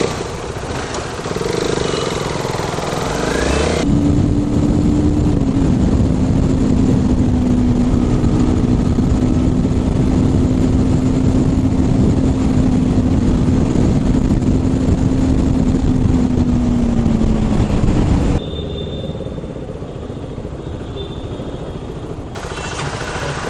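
Motorcycle on the move: a steady engine note over dense road rumble that eases slightly lower in pitch, then cuts off abruptly to quieter road and traffic noise about eighteen seconds in.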